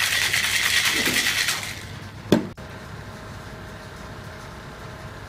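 Ice rattling hard in a metal cocktail shaker as an espresso martini is shaken, stopping about 1.7 s in. A bit over 2 s in comes one sharp metallic knock, typical of the tin being struck to break its seal.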